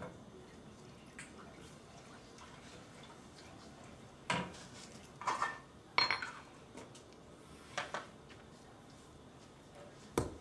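Kitchenware being handled at the stove: a quiet stretch, then about four sharp clinks and knocks in the second half, one of them ringing briefly.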